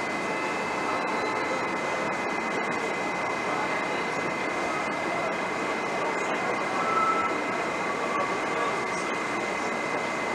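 New York City subway train of 7-line cars running along the elevated track. It makes a steady rushing noise with a thin, steady high tone over it.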